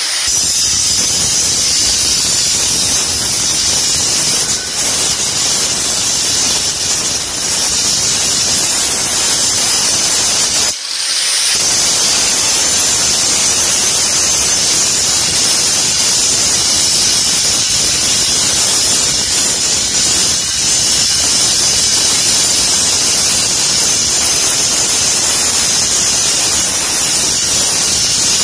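Handheld angle grinder grinding a metal bar, a steady loud, high-pitched grinding noise that dips briefly about eleven seconds in.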